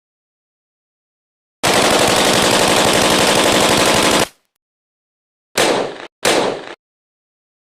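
AK-47 rifle firing on full auto: one sustained burst of about two and a half seconds, then, after a pause, two short bursts in quick succession.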